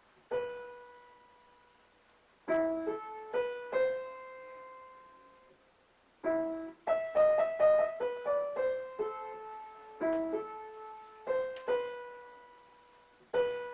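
Upright piano played slowly by hand: single notes and short chords in a halting melody, each ringing on and fading, with pauses of a second or more between the phrases.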